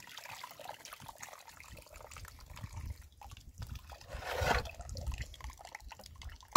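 Water draining from boiled spaghetti through a plastic colander, trickling and dripping into a plastic basin below. About four seconds in, there is a brief louder noise.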